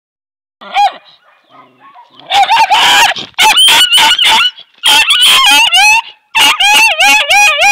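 A tan puppy barking in quick strings of high, yelping barks that bend in pitch. A single bark comes first, and the strings start about two seconds in with short gaps between them.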